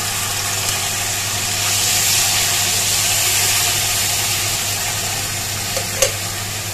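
Tomato puree sizzling as it hits hot oil and spices in a kadhai, growing louder a couple of seconds in as more is poured and spread with a steel spoon. A short click comes near the end.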